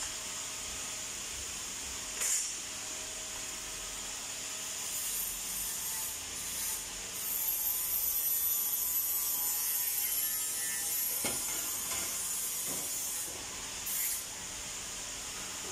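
Steady hiss of workshop machinery and air, with a thin high whine for a few seconds around the middle and a few sharp knocks, one early and a couple near the end.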